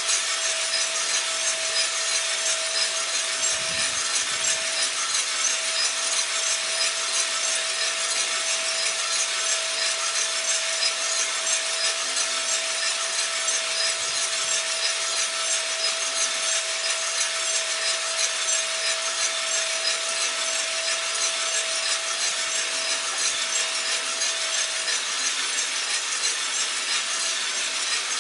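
Cormorant CR600 gas coffee roaster running through the drying phase: beans tumbling in the rotating drum over a steady rushing hiss from the fan and gas burner. A faint steady tone underneath fades out near the end.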